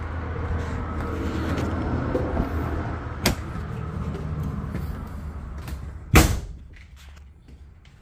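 Outdoor background rumble, then a sharp click about three seconds in and a loud thud a little after six seconds, consistent with a fifth-wheel RV entry door being shut; after the thud the background is much quieter.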